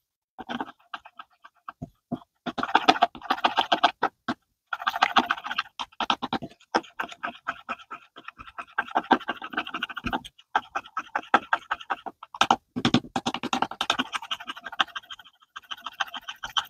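Plastic spoon stirring a thick, sticky blue glue mixture in a bowl for slime: rapid wet clicks and scrapes, in bursts with short pauses.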